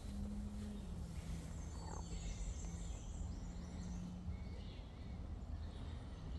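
Faint birdsong, short high chirps for a few seconds, over a steady low hum and rumble.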